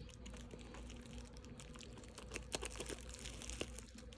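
Faint handling sounds of a doll's package being opened: a few light clicks and taps, most of them about two and a half seconds in and again near the end, over a low steady hum.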